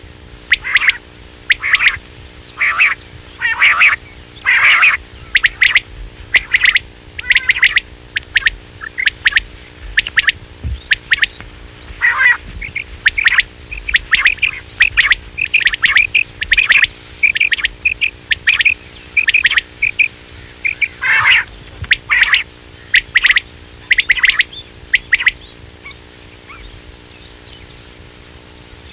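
Quail calls of the kind used as a hunting lure: short, sharp calls repeated in quick clusters of a few notes with short gaps, thinning out near the end, over a faint steady hum.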